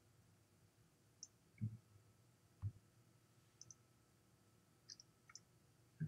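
Faint, irregular clicks of someone working at a computer: about ten scattered ticks, a few of them with a soft thump, over a quiet room background.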